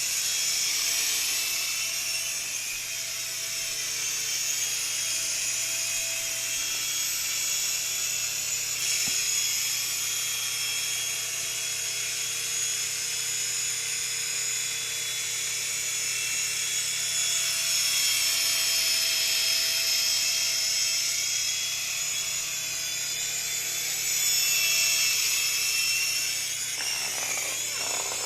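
Syma S5 mini RC helicopter in flight: a steady high-pitched whine from its small electric motors and spinning rotors, drifting slowly up and down in pitch as the throttle changes.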